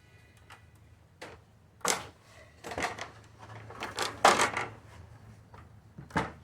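Hard objects being handled: a series of irregular knocks and clatters, about half a dozen, with the loudest about two seconds in and a cluster around four seconds in.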